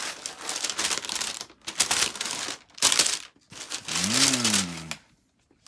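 Tissue and wrapping paper crinkling and rustling in several irregular bursts as it is handled and pulled out of a sneaker box. About four seconds in, a man gives a short wordless hum.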